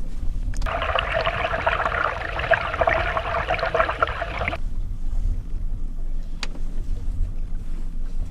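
Small outboard motor running at trolling speed, a steady low hum with water noise around the boat. About half a second in, a hissing, crackling rush of water past an underwater camera towed near the lure comes in and cuts off suddenly about four seconds later.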